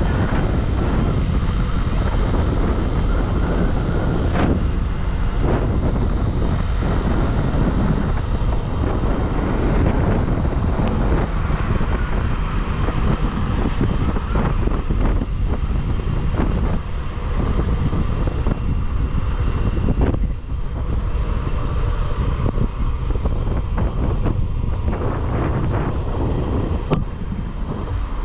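Motorcycle riding along the road, its engine and road noise half buried under steady wind buffeting on the microphone.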